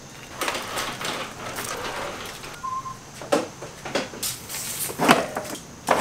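Footsteps and scattered knocks and clatters of equipment being handled and hung up on a garage wall, the sharpest knocks coming in the second half.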